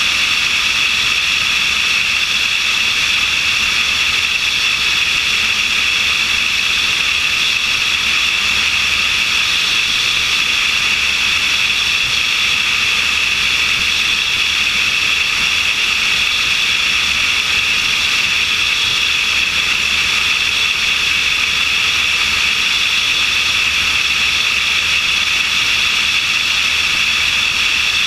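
Steady in-flight noise of a light aircraft, heard from a camera mounted on its wing: a constant rush of airflow past the camera over the aircraft's engine noise, unchanging throughout.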